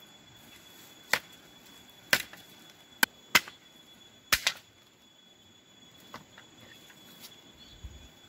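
Six sharp knocks within about three and a half seconds, some in quick pairs, over a faint, steady, high insect drone.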